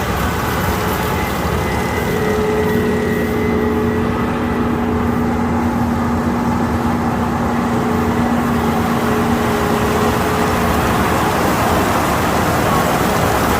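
Kukje KC5130 rice combine harvester running steadily while harvesting, a continuous machine noise with a steady whine that holds through most of the middle and then fades.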